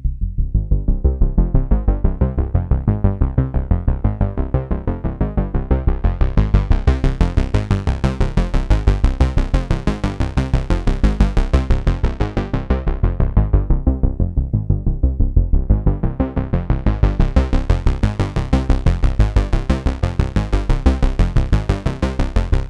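Arturia MatrixBrute synthesizer playing a fast repeating bass sequence through a TipTop Z2040 Prophet-5-style Eurorack filter. The filter cutoff is swept slowly open to a bright, full tone, closed down again about two-thirds of the way through, then reopened. The sequence stops abruptly at the end.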